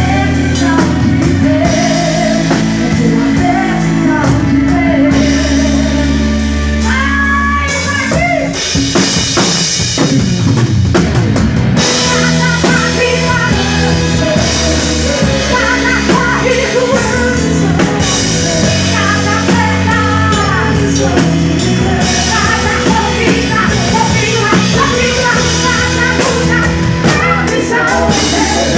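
Live gospel worship band playing, with a drum kit and guitar under a woman's sung vocal line.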